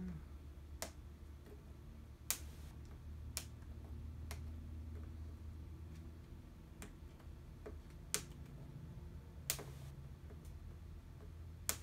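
Scattered sharp clicks and light taps at uneven intervals, about one every second or two, from small electronic parts being handled on a workbench, over a steady low hum.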